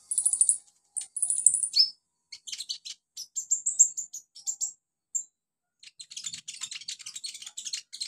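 Van Hasselt's sunbird (kolibri ninja) singing: bursts of high-pitched chirps and short falling trills, then a fast run of dry, ticking notes for the last two seconds.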